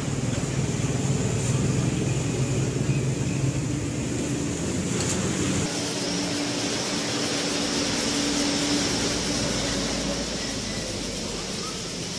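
Steady street noise with a motor engine running, a low hum that shifts to a steady low drone partway through, over a constant hiss.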